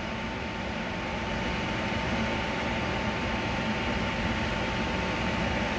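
Samsung microwave's built-in vent fan running at a steady speed: an even rush of air with a steady whine.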